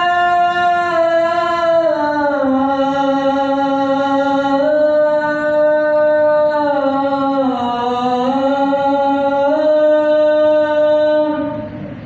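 A man's voice chanting the adhan, the Islamic call to prayer. It holds one long drawn-out phrase whose pitch steps down, then back up, and it breaks off near the end.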